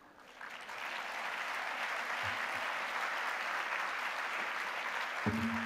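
Audience applause from a large crowd, building up about half a second in and holding steady. A dull knock comes near the end.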